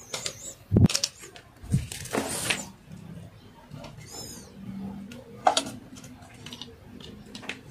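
Light knocks, clicks and rustles from handling a small transformer on its metal bracket and its connecting wires during soldering, the loudest a knock just under a second in. A short high chirp sounds about four seconds in.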